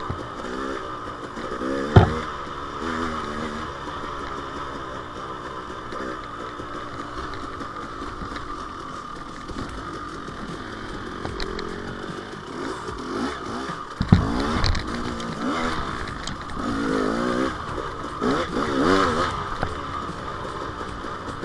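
KTM 300 XC-W two-stroke dirt bike engine being ridden, its revs rising and falling over and over. Two sharp knocks cut through it, one about two seconds in and another a little past the middle.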